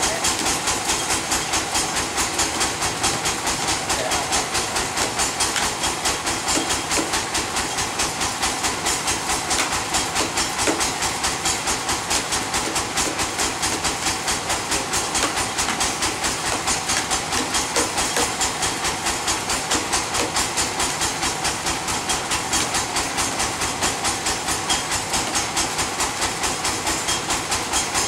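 Large log band saw running steadily, with a fast, even pulsing in its sound.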